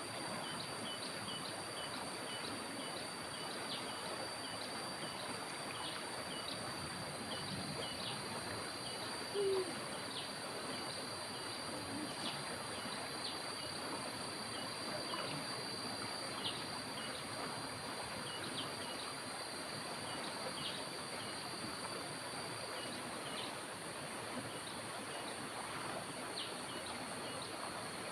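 Outdoor ambience of insects, crickets or cicadas, droning in one steady high tone over an even hiss, with many short chirps scattered throughout. A single brief louder low note about nine and a half seconds in.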